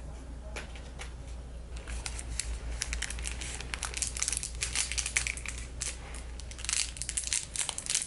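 Thin plastic packaging crinkling and crackling in the hands as a clear sleeve of jeweller's saw blades is handled and opened. The crackling starts thinly, thickens about two seconds in and comes in quick clusters, with a last flurry near the end.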